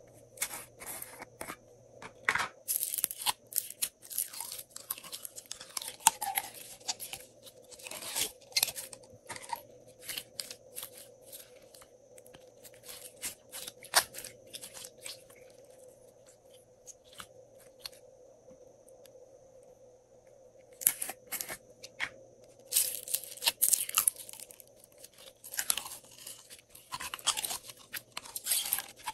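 Glossy glitter slime being pulled out of a plastic cup and pressed by hand: irregular bursts of sticky crackling and clicking, busiest at the start and again in the last several seconds, with a quieter spell in the middle.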